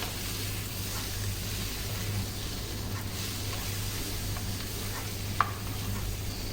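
Pigeon pieces frying in oil with onions and ground spices, a steady sizzle as they are stirred in the pan, over a steady low hum. A single sharp click about five seconds in, like a spatula striking the pan.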